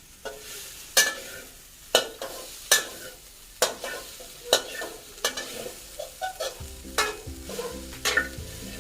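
Spatula scraping and knocking against a pan as minced pork is stir-fried, a stroke about once a second over a light sizzle. In the last two seconds a low steady hum joins in.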